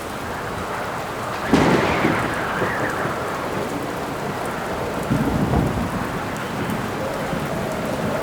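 Rain storm: steady rain with wind howling in rising and falling tones, and thunder, a sudden loud clap about a second and a half in and a lower rumble about five seconds in.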